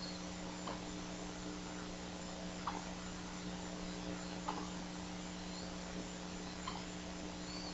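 Steady electrical hum on the audio feed, with short faint chirps about every two seconds.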